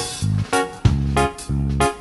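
Background music: an upbeat plucked-guitar tune with a bouncy bass line and a steady beat.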